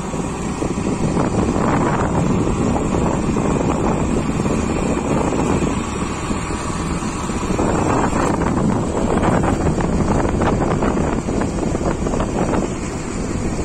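Wind buffeting the microphone over a steady rumble of road and vehicle noise, rising and falling in gusts, with no clear engine note.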